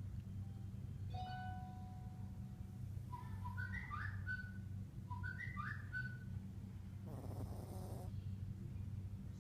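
A sleeping Yorkshire terrier snoring: thin whistling sounds through the nose, two alike short rising whistles about two seconds apart, then a breathy exhale near the end, over a steady low hum.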